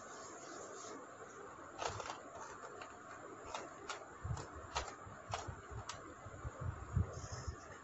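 Coloured dot pieces being set down on a whiteboard: about eight sharp clicks, with soft low thumps of a hand against the board in the second half.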